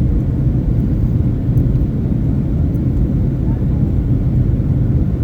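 Steady low rumble of a Boeing 757-200 airliner, even and unbroken throughout, with a faint low hum under it.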